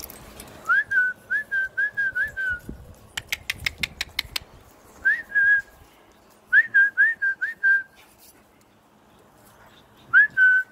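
Short whistled notes, each rising and then levelling off, repeated in quick runs of two to seven, with a rapid run of sharp clicks about three seconds in.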